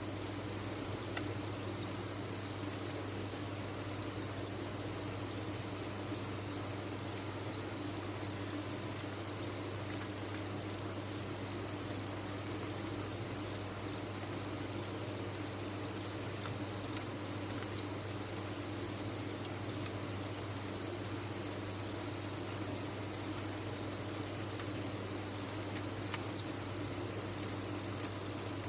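Many farmed crickets chirping together in a dense, unbroken, high-pitched chorus that stays steady throughout.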